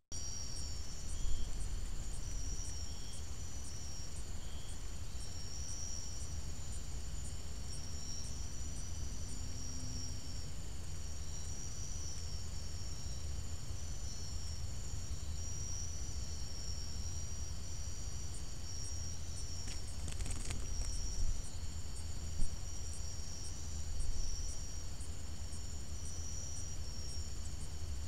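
Night insects, crickets, trilling steadily in high, pulsing waves, with a faint high tick repeating about twice a second, over a steady low rumble. A couple of brief knocks sound about two thirds of the way through.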